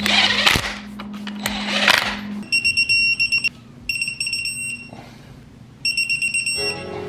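Cordless impact wrench rattling in the flywheel bolts in two bursts. It is followed by a digital torque wrench beeping, three runs of rapid high beeps that signal the bolts have reached the set torque.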